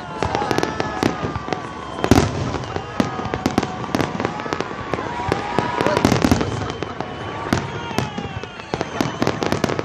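Fireworks display going off: a dense, irregular run of bangs and crackles, the loudest about two seconds in.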